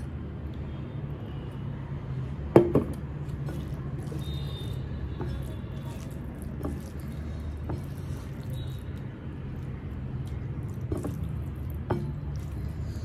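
Dal poured from a metal bowl onto rice, then a hand squishing and mixing the dal and rice on a plate, with wet, sticky sounds and light finger taps. A sharp knock comes about two and a half seconds in as the metal bowl is set down on the table. A steady low hum runs underneath.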